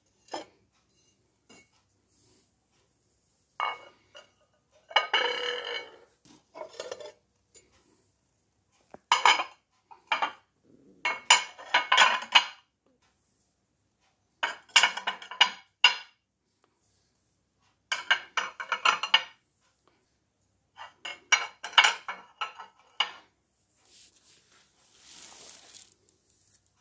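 Ceramic plates and saucers clinking and clattering in bursts as they are handled and stacked against each other, with a softer scraping sound near the end.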